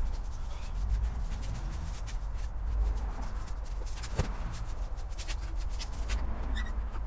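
Shuffling footsteps and handling noises: scattered light clicks and taps with one sharper knock about four seconds in, over a steady low rumble.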